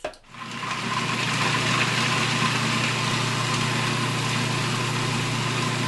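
Cuisinart food processor switched on just after the start, its motor running steadily with a loud, even hum as the blade chops garlic scapes, cheese and lemon juice into pesto.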